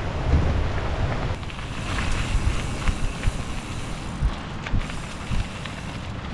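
Wind buffeting the microphone of a camera on a moving bicycle, with tyre noise from the trail. About a second and a half in, the buffeting eases and scattered sharp clicks and rattles from the bike come through.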